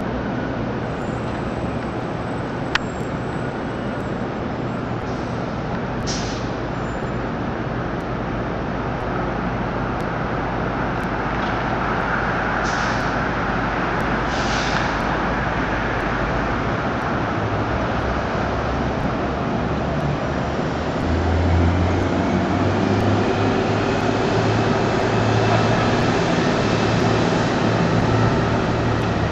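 Steady night-time city traffic noise, with a few short hisses in the first half. About twenty seconds in, the low drone of a heavy vehicle's engine joins in and the sound gets a little louder.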